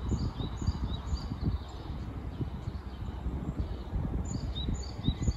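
Wind gusting against the microphone with a low rumble, while a bird sings phrases of short repeated high notes, about two a second, once at the start and again near the end.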